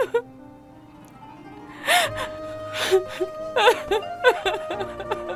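A woman sobbing, with gasping, whimpering breaths about once a second from about two seconds in, over soft background music with long held notes.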